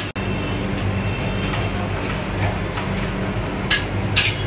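Metal spatula scraping and tapping across the frozen steel plate of a rolled-ice-cream machine, over a steady low machine hum; the two loudest scrapes come near the end.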